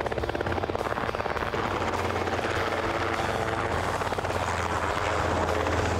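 Small helicopter flying low, its rotor beating rapidly over a steady engine drone, a little louder near the end.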